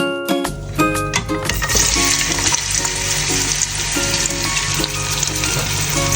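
Food sizzling in hot oil in a pan, starting about a second and a half in as an even, steady sizzle.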